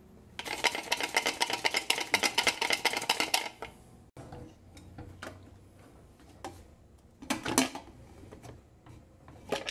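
Lidded pressure cooker shaken hard with cooked chicken inside to shred it: a fast, even rattling of pot and lid, about ten knocks a second, for some three seconds. Then a few scattered lighter knocks and a louder clatter of kitchenware.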